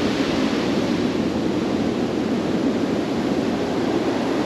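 Steady, even rush of ocean surf washing onto a beach at high tide.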